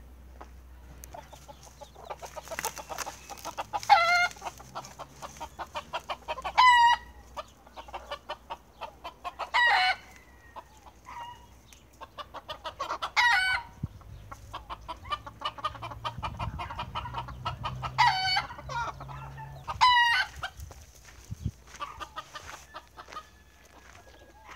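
Chickens clucking and cackling: runs of quick clucks that build into a loud drawn-out squawk, repeated several times.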